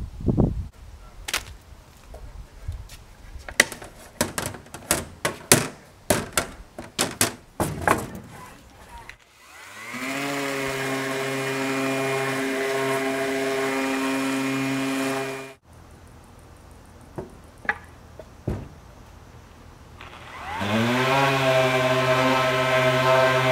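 A run of sharp clicks and knocks as quick-grip bar clamps come off a wooden box. Then an electric random-orbit sander spins up with a rising whine and runs steadily on the wood for about five seconds, cuts off, and spins up again near the end.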